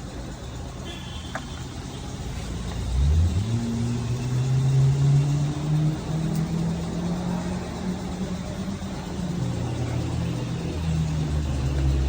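Car engine running, its pitch rising about three seconds in as it revs or accelerates, holding with small changes, then dropping and climbing again near the end.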